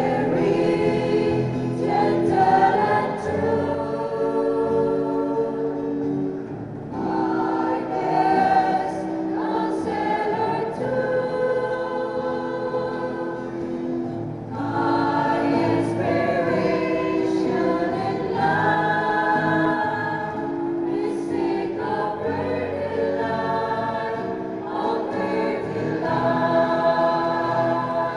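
Music: a choir singing a hymn in long held phrases, pausing briefly between phrases every few seconds.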